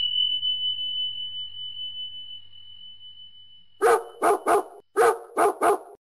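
A single chime strike whose high ringing tone fades away over about three seconds, then a dog barking: six short barks in two quick runs of three, a dog-bark sound effect.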